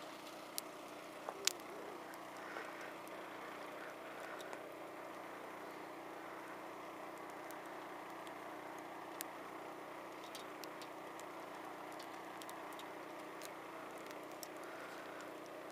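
Faint, steady rushing noise, with a few sharp clicks in the first couple of seconds and scattered light ticks later on.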